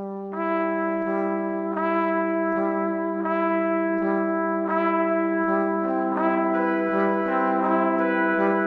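Background instrumental music: a melody of sustained, brass-like notes over a held low note, the notes changing about once a second.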